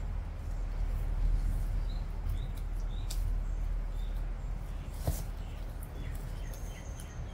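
Aldabra tortoises biting and tearing at cut grass, short crisp clicks and crunches here and there, with a sharper knock about five seconds in. Small birds chirp faintly in the background over a steady low rumble.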